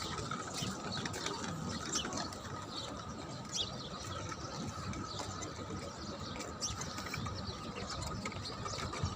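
Outdoor background noise with a faint steady high hum and scattered light clicks.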